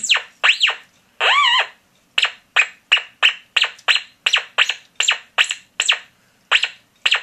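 Beat-frequency tone of a homemade BFO metal detector, heard through an amplified speaker, sweeping in pitch as a drink can is moved over the search coils: a string of short whistling chirps, each rising and falling, about three a second, stopping just before the end.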